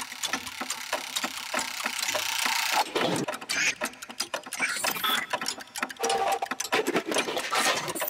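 Dense, fast, irregular mechanical clicking and rattling, like a small mechanism running.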